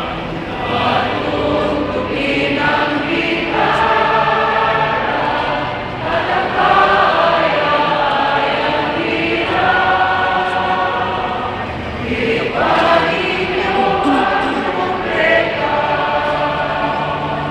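A choir singing in long held notes, phrase after phrase, with the voices echoing in a large cathedral.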